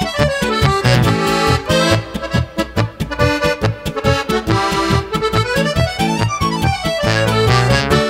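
Solo Zupan button accordion playing a lively tune. A regular pulse of bass notes and chords runs under the melody, and quick runs climb and fall twice, about halfway through and again near the end.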